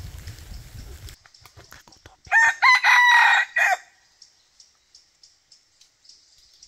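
Red junglefowl rooster crowing once about two seconds in, one short crow of about a second and a half, broken into a few parts.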